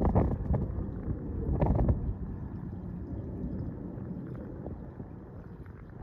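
Wind buffeting the microphone, with two strong gusts in the first two seconds. Under it a low jet rumble from the passing Boeing 747-400 freighter fades steadily away.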